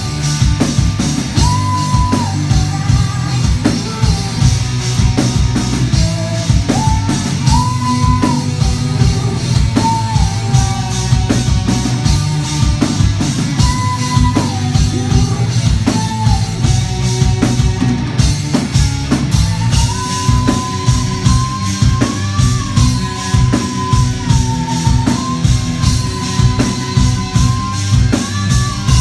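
Rock band playing live: a drum kit keeps a steady beat under bass and guitar. A held melody line rides on top, sliding between notes.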